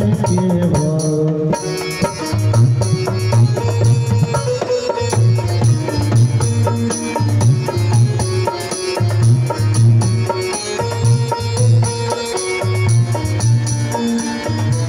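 Live Indian band music in an instrumental passage: a Roland XPS-10 keyboard plays the melody over dholak and electronic drum-pad beats, with a heavy low beat repeating throughout. A sung line ends right at the start.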